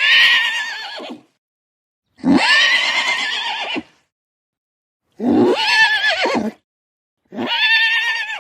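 Horse whinnying: four separate neighs, each about a second or more long, with a quavering, wavering pitch.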